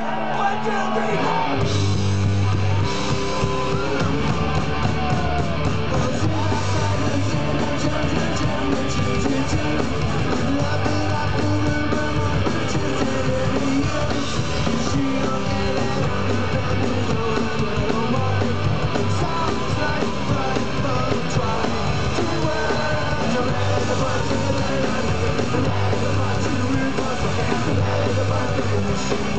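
Punk rock band playing live: distorted electric guitars, bass and drums with shouted singing, heard from within the audience. The full band with bass and drums comes in about a second and a half in.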